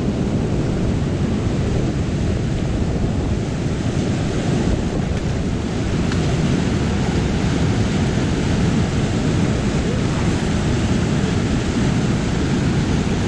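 Fast river water rushing and churning through whitewater rapids over rocks, a loud, steady rush.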